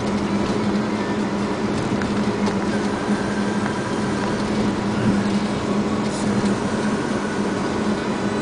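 Semi truck's diesel engine running steadily at cruising speed with tyre and road noise, heard from inside the cab as a constant low hum.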